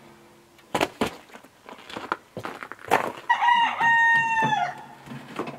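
A rooster crowing once, a long call of about a second and a half that is held level and falls off at the end. A few sharp knocks come before it.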